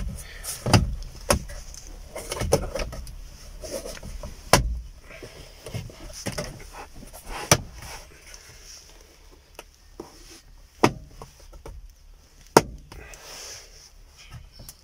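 Hard plastic dashboard trim panel being pressed and snapped into place by hand around a car radio: a string of sharp clicks and knocks at irregular intervals, louder in the first half, with handling rustle between them.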